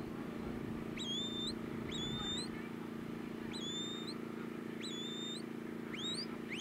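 Sheepdog handler's whistle giving a series of short commands to the working dog, about one a second, mostly a held note that flicks up at the end, the last a quick rising sweep. A steady low hum runs underneath.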